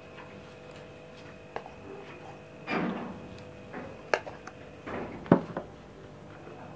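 Spoon handling while ginger-garlic paste is added to raw chicken pieces in a bowl: a few light taps and clicks and a short scrape about three seconds in, over a faint steady hum.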